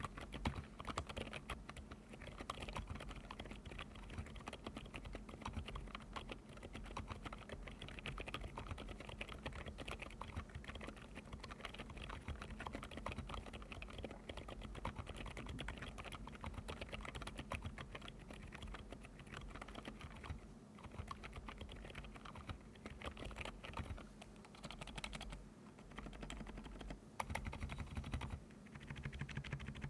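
Typing on an Epomaker RT100 mechanical keyboard fitted with Outemu Cream Yellow Pro silent tactile switches: soft keystrokes in a fast, continuous stream, with a gentle crunch like stepping on fresh snow. A few brief pauses come in the second half.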